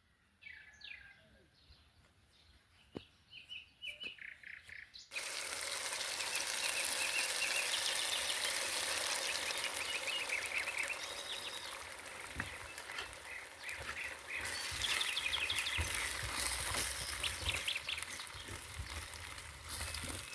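Small birds chirping. About five seconds in, a loud, steady sizzle of frying in a hot pan starts suddenly, with the bird chirps going on over it.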